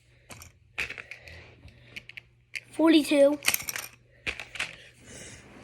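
Small fidget toys clicking and clacking as they are picked up and set down, a string of sharp knocks at uneven intervals.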